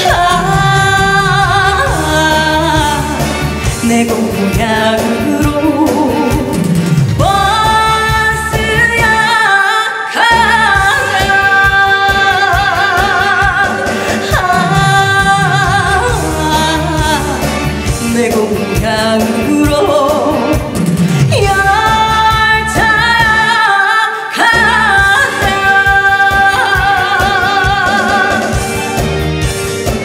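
A woman singing a Korean trot song over instrumental accompaniment, holding notes with a wide vibrato. The bass drops out briefly twice, about a third of the way in and again near the end.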